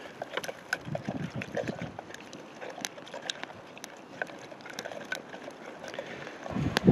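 Small campfire crackling, with irregular sharp pops and snaps over a steady faint hiss, and a louder knock near the end.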